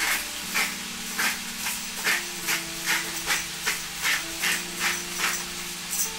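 Regular short scraping strokes, about two and a half a second, from kitchen work with a utensil, over background music with held notes.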